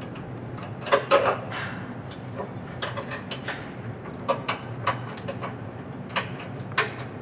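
Sheet-metal shock-reservoir mounting bracket knocking and clinking against a truck's steel frame as it is worked into place by hand: irregular sharp metal clicks, the loudest two about a second in, over a steady low hum.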